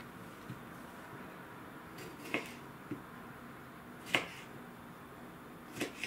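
Kitchen knife cutting cherry tomatoes into quarters on a wooden cutting board: about five short sharp knocks of the blade meeting the board, the loudest about two and four seconds in, over faint background hiss.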